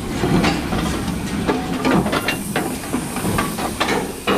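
Rail-mounted scrapyard jib crane at work with a load on its hook: its machinery runs with a steady low noise and irregular metallic clanks and knocks.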